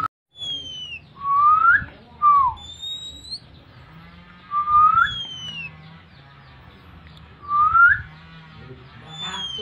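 Oriental magpie-robin (kacer) giving clear whistled calls: short pure notes that slide up or down, some high falling notes and some lower rising ones, repeating every second or two. A birahi call of the kind used to provoke a kacer.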